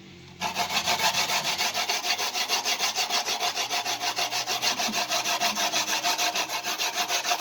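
Coconut flesh being grated by hand on an old-style grater: fast, even rasping strokes that start about half a second in.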